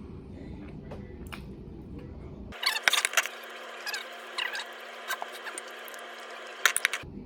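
Close-miked eating noises: wet mouth clicks and smacks of chewing, in sharp bunches about two and a half seconds in and again near the end, over a low room hum that cuts out partway through.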